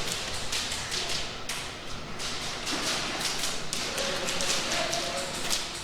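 Airsoft gunfire in an indoor close-quarters arena: irregular sharp pops and clicks, some in quick runs, over a steady background hiss.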